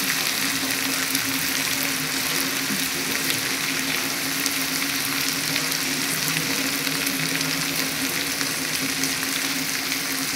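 Diced potatoes and onions frying in hot oil in a pan, a steady sizzle with faint scattered crackles, over a steady low hum.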